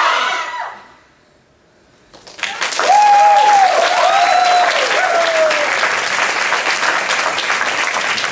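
Music fades out, and after a brief lull an audience breaks into applause about two seconds in. A few voices whoop and cheer over the clapping.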